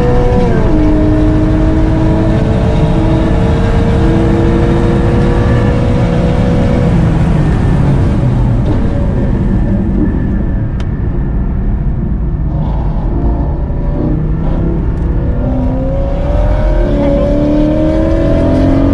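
Porsche Cayman GT4's flat-six engine heard from inside the cabin while lapping a circuit. The engine pitch drops once near the start, then climbs slowly; through the middle the engine note falls away and the sound quietens, and near the end it climbs again under acceleration.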